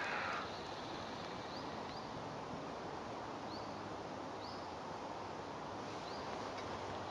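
Quiet outdoor ambience: a steady hiss of air and leaves, with a small bird giving several short, high, rising chirps every second or two.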